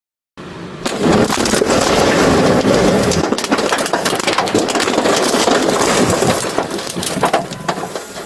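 A house explosion: a sudden blast about a second in, then several seconds of loud, continuous crashing full of sharp cracks as the building breaks apart and debris comes down.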